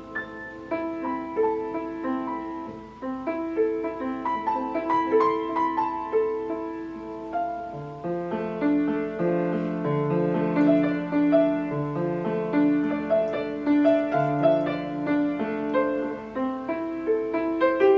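Steinway piano being played: a single line of notes in the middle register, joined about eight seconds in by lower notes and fuller chords.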